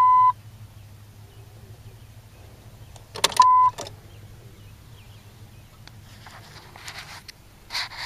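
Truck dashboard warning chime: a steady electronic beep that ends just after the start. About three seconds in come a couple of sharp clicks and a second short beep, over a low steady hum.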